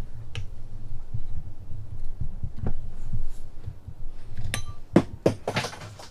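Hand-tapping new threads in a stripped bolt hole of a mower transmission case: low knocks and handling noise as the tap and wrench turn, with sharp metal clinks in the last second and a half, one ringing briefly.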